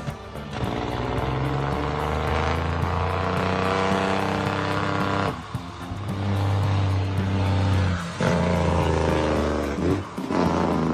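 Background music with a steady beat and sustained low chords that change a few times.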